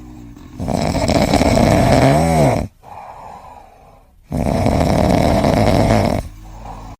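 A pet snoring loudly: two long snores of about two seconds each, the first ending in a short squeaky tone that rises and falls.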